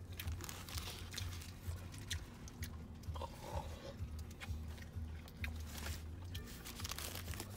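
A person biting and chewing a mouthful of burger close to the microphone, with crunching and wet mouth clicks throughout, over a low steady hum.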